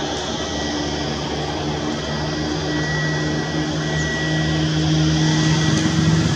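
CFM LEAP-1A turbofan engine of an Airbus A320neo running, a steady rushing drone with a low hum. The hum edges slightly up in pitch and the sound grows a little louder in the last couple of seconds.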